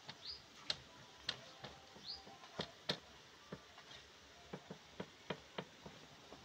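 Irregular light taps and clicks, about a dozen, as a rolled log of layered khaja dough is pressed and stretched by hand on a large aluminium tray. A small bird gives a short rising chirp twice.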